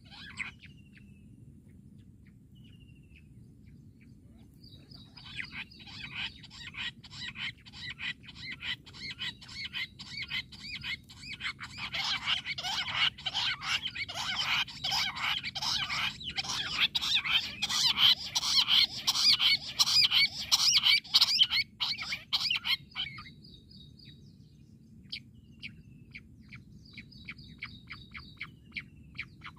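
Jungle bush quail calling: a long run of rapid, closely spaced notes that starts about five seconds in, grows louder around the middle and stops a few seconds before the end, followed by a few fainter notes.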